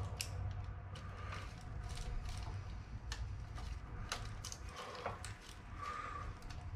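Insulated screwdriver undoing the terminal screws of a 24-gang light switch: small irregular clicks and scrapes of metal on metal as the screws turn and the switch wires are worked loose.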